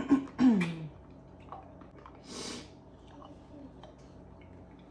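A short vocal sound with falling pitch, then about two seconds in a single quick, noisy breath, from someone whose mouth is burning from very spicy ramen.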